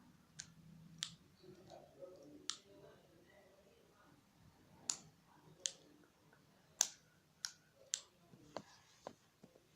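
A string of about ten faint, sharp clicks at irregular intervals, the sharpest about seven seconds in, with a faint low rustle between them.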